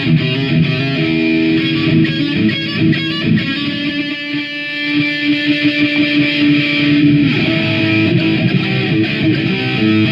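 Electric guitar playing a riff loudly, a run of notes with one note held for a few seconds mid-way.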